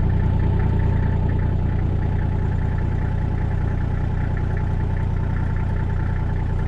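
A ute's engine idling steadily while the vehicle stands still, heard from inside the cab.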